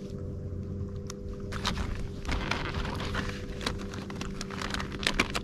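Irregular rustling and small clicks of fishing tackle and line being handled by hand, over a steady low hum.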